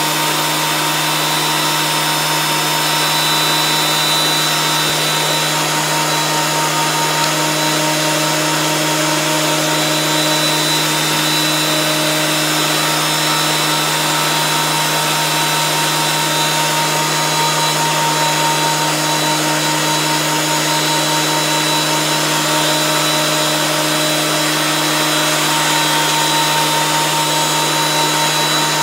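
Electric wood planer running steadily: an even motor noise with a constant hum and no change in load.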